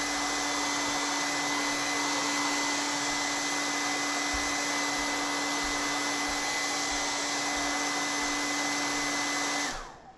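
Handheld hair dryer running steadily, a loud rushing blow with a steady whine over it; it is switched off near the end and winds down quickly.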